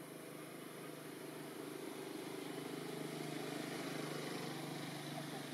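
A steady low mechanical hum, like an engine running, swelling a little in the middle.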